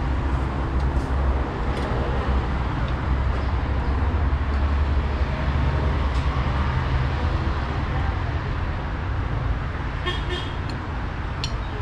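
A steady low engine rumble with a deep hum, and a few light clicks near the end.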